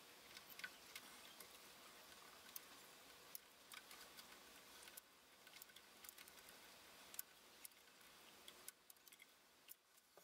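Faint, irregular small clicks and ticks of diagonal cutters snipping the lacing cord on an amplifier's wiring harness, with the wires being handled.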